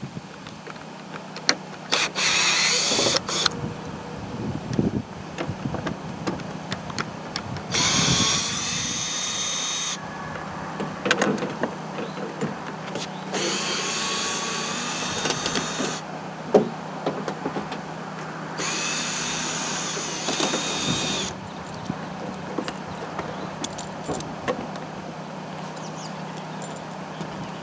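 Cordless drill/driver backing screws out of the plastic shroud of a Coleman rooftop RV air conditioner: four runs of a couple of seconds each, with clicks and knocks from handling the screws and shroud in between. A steady low hum runs underneath.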